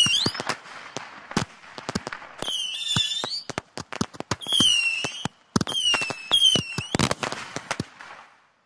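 Fireworks going off: several high, wavering whistles from whistling rockets among many sharp cracks and bangs, dying away near the end.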